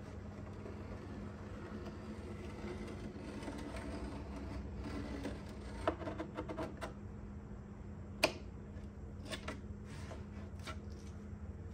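Faint rustling and scattered sharp taps as paper drawer liner is pressed by hand into the corners of a wooden drawer, over a steady low hum. Two taps stand out, one around the middle and one a couple of seconds later.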